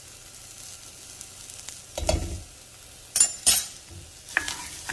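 Long-grain rice, onion and garlic sizzling steadily in oil as the rice is toasted on medium heat, stirred with a wooden spoon in an enamelled pot. The spoon knocks and scrapes against the pot about two seconds in, twice more around three and a half seconds, and once near the end.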